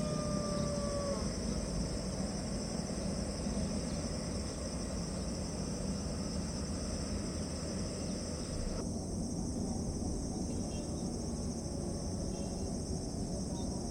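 Insects in a steady high-pitched drone over the low, even rumble of a jet airliner's engines at taxi. A long, slightly falling animal call fades out about a second in.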